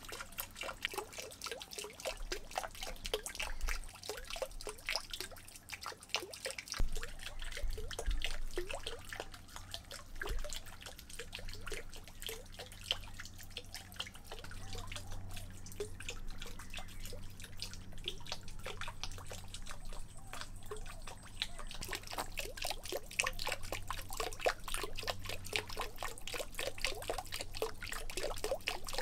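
Water dripping and trickling into a small pond, a dense, continuous patter of drops.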